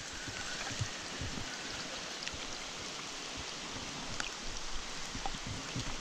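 Steady wash of a flowing creek with light rain falling on it, a few faint raindrop ticks and scattered low bumps.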